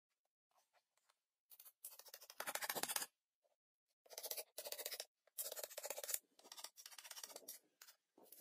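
Dry wood scraping and rubbing, as logs and branches are shifted against each other. It comes in three rasping bursts of about a second each, starting about a second and a half in.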